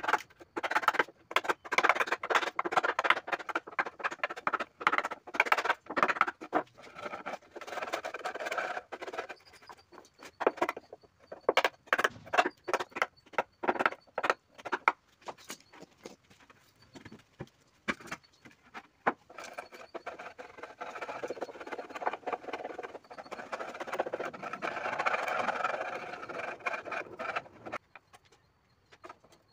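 A hammer knocking a chisel-like blade into plywood, with the crack and splinter of thin wood strips being split out of a cut-out. Rapid, irregular knocks fill the first half, then a stretch of rough scraping and tearing of wood stops a couple of seconds before the end.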